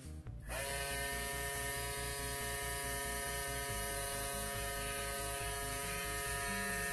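No-Name mini airbrush compressor running on its high setting (about 30 psi) while an airbrush sprays. A steady motor buzz with a fast even pulse comes in with a strong air hiss about half a second in and holds steady.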